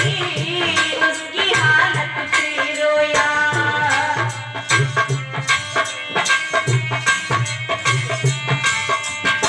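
Indian devotional bhajan music: a steady tabla-style hand-drum beat under a sustained melody line, with a little singing.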